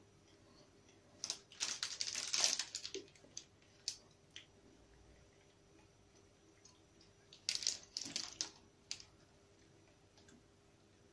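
Plastic cookie-packet wrapper crinkling and crackling as it is handled, in two bouts: one starting about a second in and lasting a couple of seconds, and a shorter one past the middle.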